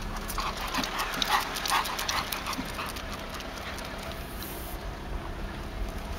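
Four-month-old German Shepherd puppy, running, making short repeated sounds about twice a second, mostly in the first two seconds. Underneath is the steady low running noise of the car pacing it.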